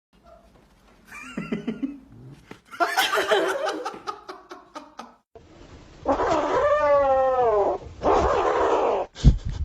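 A cat's drawn-out yowl, its pitch bending and then falling, about six seconds in, among short bursts of other animal noise and laughter; a single thump comes just before the end.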